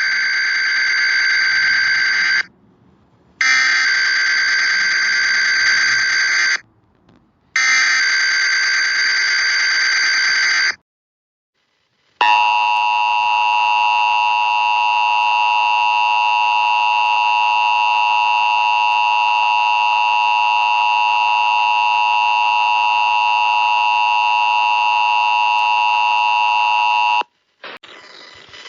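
Emergency Alert System (EAS) broadcast tones. The SAME header's digital data tones sound in three bursts of about three seconds each, with short pauses between them. After a brief silence the steady EAS attention tone sounds for about fifteen seconds, the signal that an emergency alert message follows.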